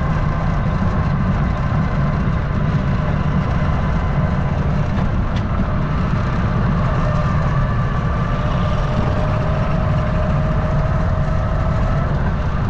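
Wind buffeting the microphone: a loud, steady low rumble with no breaks.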